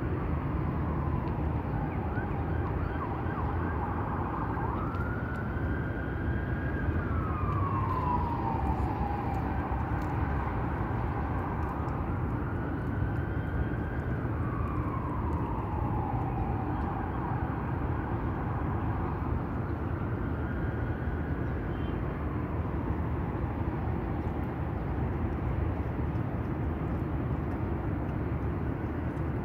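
An emergency-vehicle siren wailing, its pitch slowly rising and falling every several seconds and growing fainter toward the end, over a steady low rumble of city traffic.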